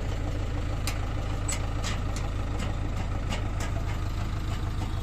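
Heavy diesel engine idling with a steady low rumble, with scattered light sharp ticks over it.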